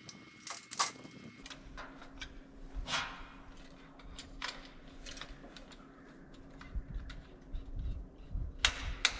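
Gear being handled: scattered clicks and knocks over a steady low hum, with a cluster of louder knocks near the end.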